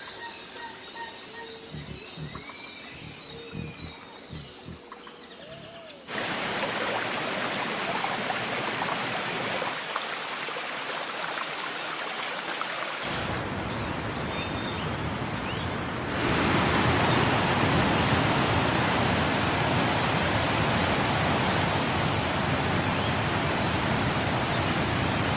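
Faint bird chirps over quiet outdoor ambience. About six seconds in, a steady rushing noise like running water sets in, and it grows louder about sixteen seconds in.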